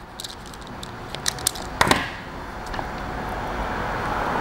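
Small clicks and snaps of a hand crimping tool and wire terminals being worked, with one sharp click a little under two seconds in. A steady noise rises in the background over the second half.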